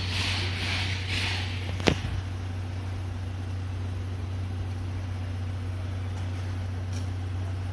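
Steam locomotive C11 325 being turned on a turntable: a steady low hum, with rhythmic hissing pulses about three times a second that die away about a second and a half in, and a single sharp clank just before two seconds.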